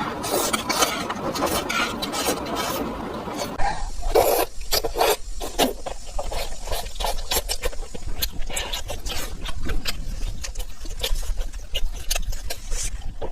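Close-miked mukbang eating sounds: chewing with wet mouth clicks and smacks. A dense, wet rustle for the first few seconds gives way to a run of quick, sharp clicks and crunches.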